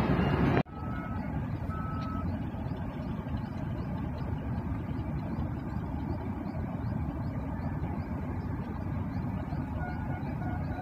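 Steady low rumble starting abruptly less than a second in, with short electronic beeps like a vehicle's reversing alarm: two about a second in and a few more near the end.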